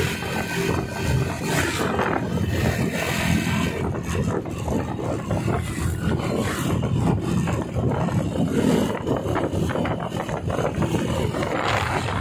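Honda motorcycle engine running loud under way, a rough, rapid exhaust beat that swells and dips.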